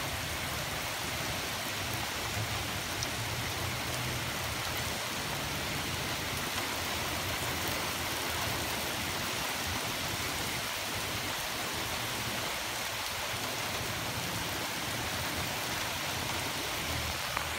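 Heavy rain falling, an even, steady hiss.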